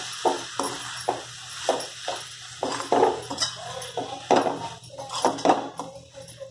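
A spoon scraping and knocking against a kadhai as flattened rice is stirred and sautéed: short sharp taps, about two or three a second, each with a slight ring.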